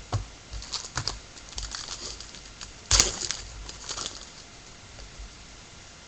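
Baseball card packs and cards being handled: a run of irregular clicks and crinkles, with the loudest sharp crackle about three seconds in, trailing off toward the end.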